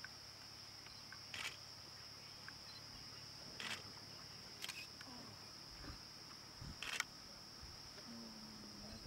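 A still camera's shutter clicking four times, spaced a second or two apart, the loudest about seven seconds in, over a steady high-pitched insect drone.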